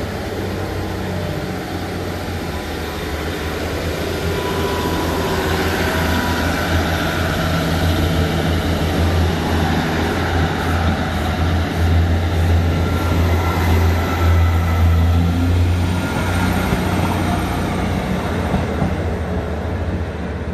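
Underfloor diesel engines of a Northern class 158 and class 150 diesel multiple unit working in multiple, pulling away from the station with a steady low engine drone. The sound builds as the units pass, is loudest about halfway through, then eases as the train draws away.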